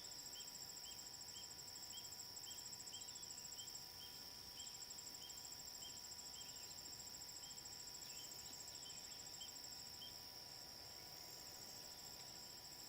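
Crickets or other insects trilling steadily, one of them in a fast pulsing trill. Over it, a short chirp repeats about twice a second and stops about ten seconds in.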